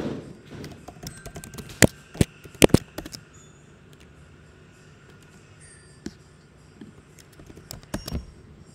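Typing on a laptop keyboard: scattered key clicks, with a cluster of sharper key presses about two seconds in and a few more near the end.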